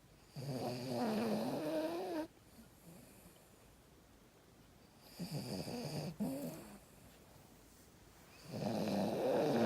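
A small pet dog snoring: three drawn-out snores, each a wavering pitched tone, a few seconds apart, with the third starting near the end.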